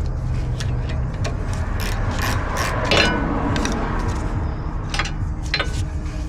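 Socket ratchet clicking in irregular strokes as a brake caliper bolt is worked loose, with the clicks thickest about two to three seconds in.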